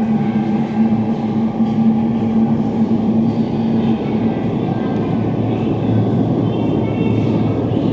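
Sendai Subway 2000 series linear-motor train running away down the tunnel after departing, a steady rumble in the concrete tunnel. A held hum in the noise stops about halfway through.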